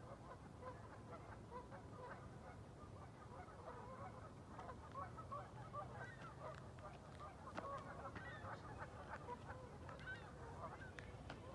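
Faint chorus of geese honking on the lake, many short calls overlapping continuously.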